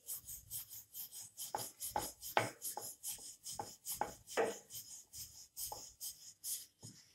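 A wooden rolling pin rolling flatbread dough out on a round wooden board. It makes a rhythmic rub and knock as it goes back and forth, about three strokes a second.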